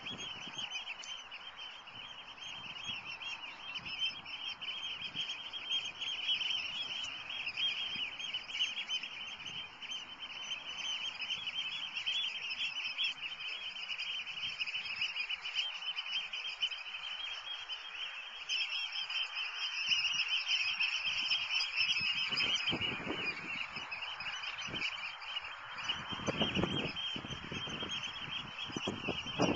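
A group of oystercatchers calling without a break: rapid, shrill piping notes that overlap one another. A few low rumbles come in the last third.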